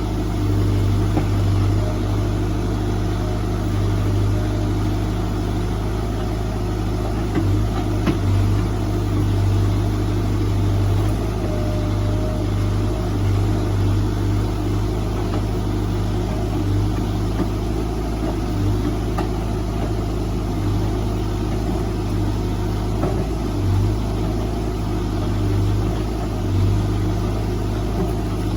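Heavy machine's diesel engine running steadily at an even pitch, with small, brief swells in level.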